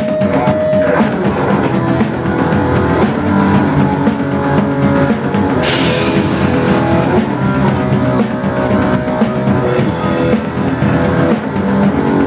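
Rock band playing live on drum kit and electric guitar, with dense drum and cymbal hits throughout and a cymbal crash about six seconds in.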